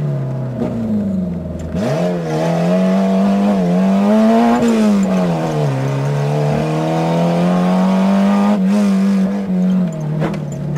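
Citroën AX rally car's four-cylinder engine at full stage pace, heard from inside the cabin. Revs dip briefly about two seconds in, climb to a peak around four and a half seconds, fall away, hold steady, then drop again near the end.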